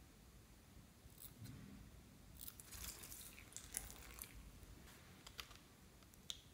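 Faint snips of scissors cutting open a soft yellow squishy ball, with a cluster of small crisp clicks around the middle and two sharp clicks near the end.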